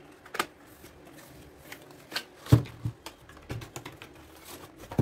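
Small acrylic paint bottles clicking and knocking against each other and the table as they are handled, with one louder knock about two and a half seconds in.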